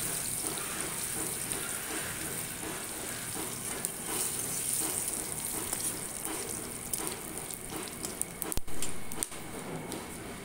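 Whole tempering spices (bay leaves, cumin seeds, dried red chillies) sizzling in hot oil in an aluminium karahi, with scattered small ticks. A metal spatula stirs them, and there is a sharper knock on the pan about eight and a half seconds in.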